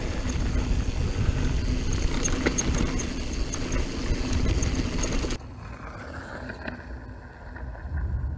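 Mountain bike descending a dirt singletrack: a steady rush of wind on the microphone, tyres on dirt and light rattling from the bike. About five seconds in, it cuts abruptly to a much quieter hiss.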